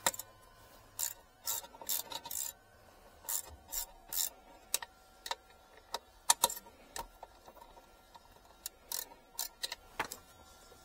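A ratchet and socket clicking and scraping in short, irregular bursts on the mounting bolts of a BMW E90's airbag module under the centre console.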